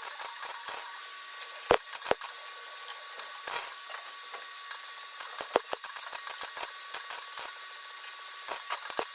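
MIG welding arc crackling and sputtering as patch steel is welded into a car's thin floor pan on a low welder setting, with a few sharper pops. The metal is thin enough that holes are blowing through.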